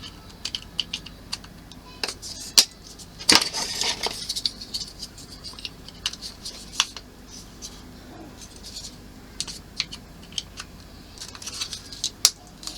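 Small plastic model-kit parts clicking and tapping as lids are pressed onto tiny missile crates, with a brief rattling clatter about three seconds in; the lids are stiff and do not want to go on.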